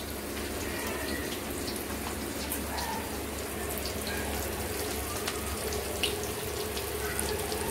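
Masala-coated fish fillets sizzling in hot oil in a shallow pan: a steady frying hiss with scattered small crackles and pops.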